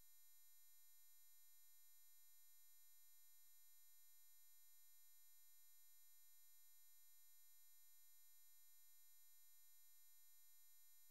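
Near silence, with only a very faint steady electronic tone.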